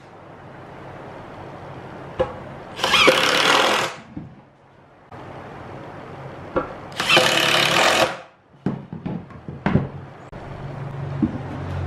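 Cordless drill driving wood screws into a plywood speaker box, in two short runs of about a second each, then a few light wooden knocks and clatter as the panels are handled.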